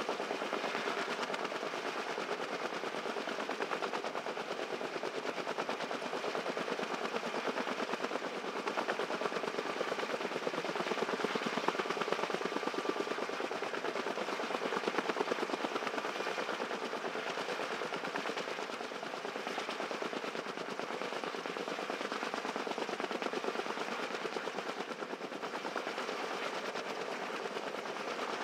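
Kaman K-MAX heavy-lift helicopter's intermeshing twin rotors beating in a rapid, steady chop.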